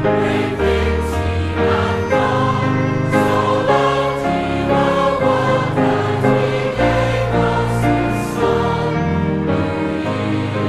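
A choir singing with musical accompaniment, in held, full chords.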